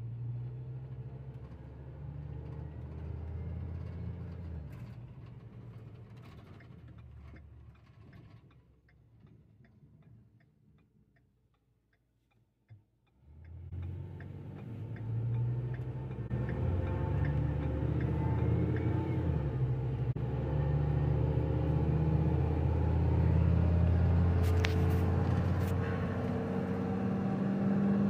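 Ford F-450 truck engine heard from inside the cab. It drops almost to nothing for a few seconds while a steady ticking, like a turn signal, clicks about once or twice a second. Then the engine drone rises as the truck pulls away and holds steady under load at about 2,200 rpm.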